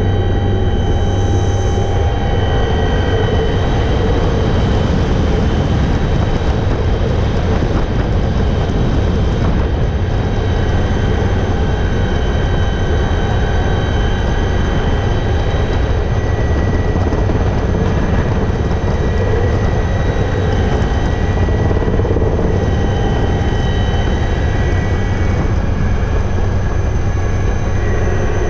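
Alouette III helicopter running steadily: a constant low drone from the rotor and engine, with several steady high whining tones from the turbine over it.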